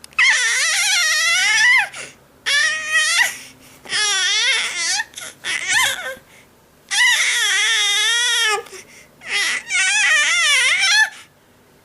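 Infant crying in a series of about six high-pitched, wavering wails with short breaths between them.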